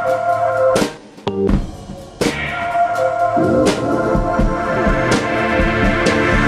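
Background music with drums and sustained keyboard or organ chords, dropping away briefly about a second in before picking up again.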